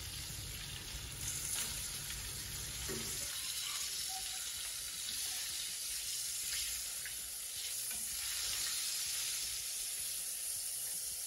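Coconut-flour-crusted crayfish deep-frying in hot oil: a steady sizzle with light crackling, and a few faint knocks as the pieces are turned in the pan.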